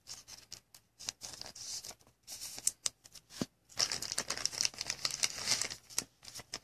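Trading cards being handled on a table: scattered light clicks and rustling, with a longer stretch of rustling in the second half.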